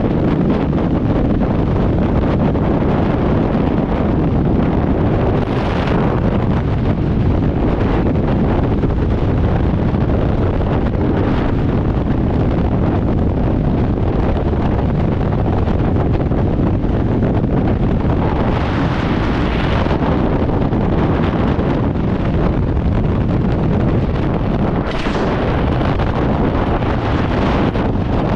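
Caterpillar D2 crawler tractor running, a steady heavy low-pitched drone, with wind buffeting the microphone in several brief rushes.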